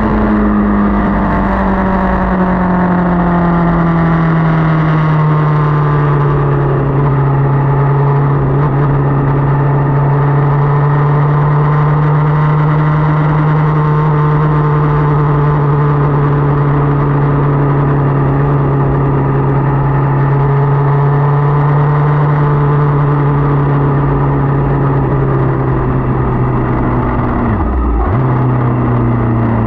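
Motorcycle engine running steadily while riding. Its pitch eases down a little in the first few seconds, then holds even, with a short dip in engine speed near the end, like a gear change.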